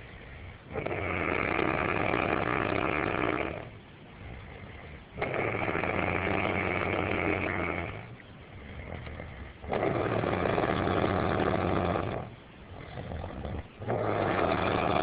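Snoring: long, loud snores repeating about every four and a half seconds, each lasting two to three seconds, with quieter breathing in between. A fourth snore begins near the end.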